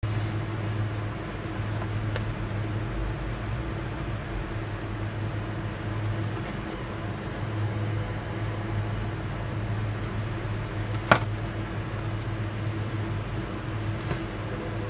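Steady low machine hum with a faint even hiss, and one sharp click about eleven seconds in.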